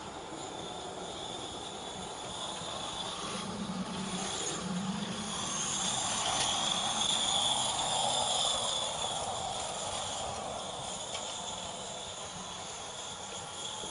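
Small live-steam garden-railway locomotive running, a steady hiss that grows louder as it comes near and is loudest about halfway through.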